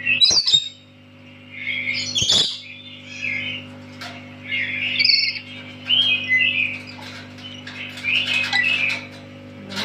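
Pet lory giving loud, shrill squawks and chirps in a string of short calls, with two sharp clicks in the first few seconds.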